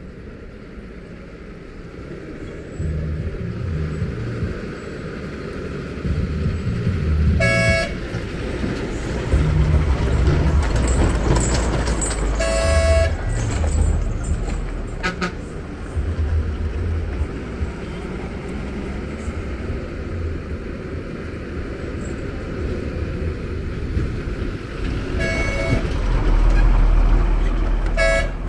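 Heavy lorry diesel engines running and labouring as lorries go round a hairpin bend, with a vehicle horn tooting in short blasts about four times.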